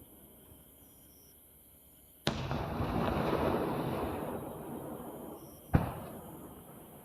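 Fireworks going off: a sudden burst about two seconds in, followed by a rush of noise that fades over about three seconds, then a second sharp bang near the end.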